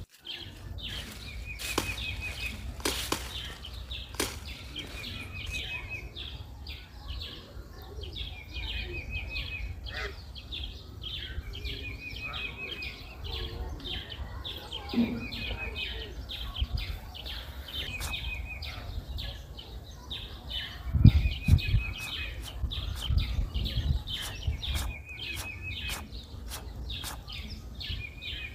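A bird repeats a short, high trilled call every two to three seconds over steady chirping and clicking. About two-thirds of the way through there is a louder low thump.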